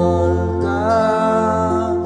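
A man sings a Korean folk song to his own acoustic guitar strumming, holding long notes that bend gently up and back about halfway through.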